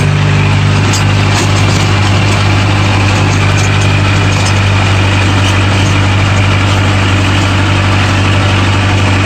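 Kubota tractor's diesel engine running steadily under load while it drives a rotary tiller through the soil.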